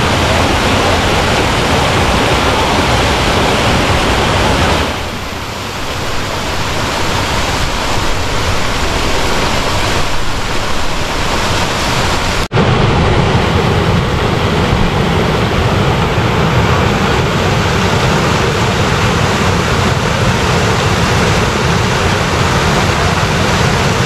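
Water rushing steadily down a rocky cascade into shallow natural pools. It is briefly softer about five seconds in, and after a sudden short break about halfway it comes through with a deeper rumble.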